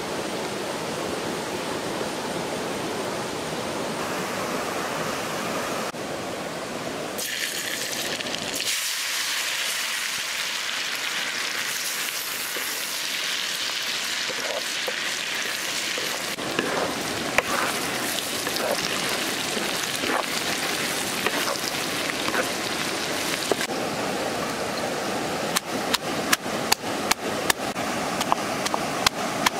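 Hot oil sizzling steadily in a wok as fish pieces and then sliced tomatoes and red chilies fry, with a wooden spatula scraping and stirring now and then. Near the end, a stone pestle pounds chilies and garlic in a stone mortar, about two knocks a second.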